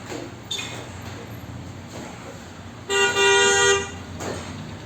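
A vehicle horn sounds once, a steady honk lasting about a second, around three seconds in.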